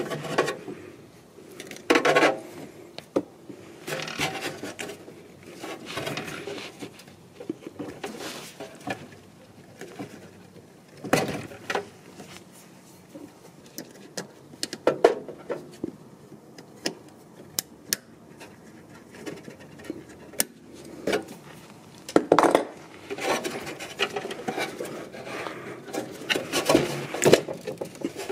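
Irregular clicks, knocks and rubbing from hands and pliers working on plastic and metal parts: water-pump pliers on a hose clamp and the Airmatic compressor's intake air filter being twisted and pulled off its hose.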